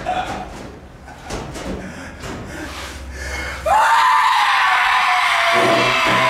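A few scattered knocks, then just past halfway a loud, long scream held on one high pitch.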